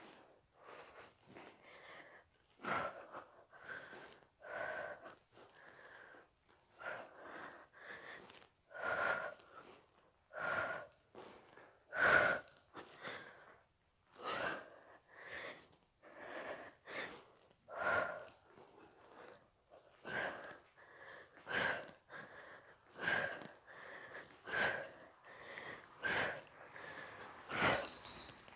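A woman breathing hard through a set of seated knee tucks on a bench, with a forceful exhale about every one and a half seconds, in time with her repetitions.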